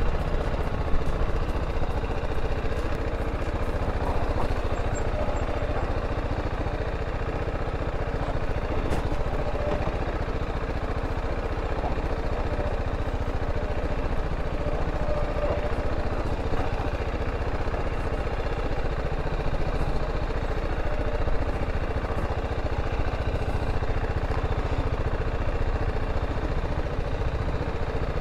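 BMW G310GS motorcycle's single-cylinder engine running steadily as the bike is ridden along a sandy dirt track.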